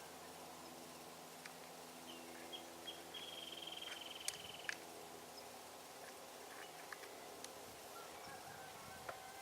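Faint outdoor ambience with a high, buzzy trill lasting about a second a third of the way in, and a few sharp clicks near the middle.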